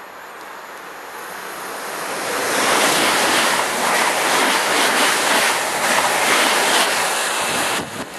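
Class 365 electric multiple unit passing close at speed: a rush of wheel and air noise that builds, stays loud for about five seconds, then drops sharply as the last coach goes by near the end. The train's slipstream buffets the microphone with wind noise.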